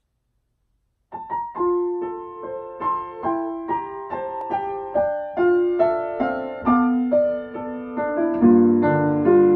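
Grand piano played solo, starting about a second in: a melody of separate struck notes over a light accompaniment, with fuller, louder low notes coming in near the end.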